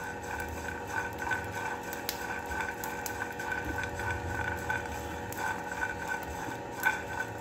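Peanuts and cumin seeds being stirred with a silicone spatula as they dry-roast in a non-stick frying pan, with light scattered rattles and scrapes over a steady background hum.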